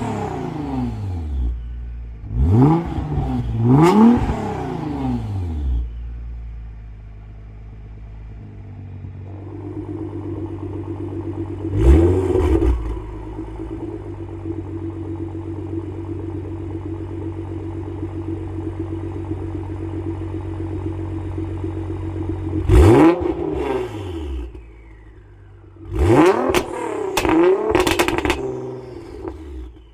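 Nissan GT-R R35's twin-turbo V6 through a custom 4-inch valved exhaust, revved in short blips from idle, each one rising sharply and falling straight back. Between blips it idles steadily, and near the end comes a quick run of about four blips in a row.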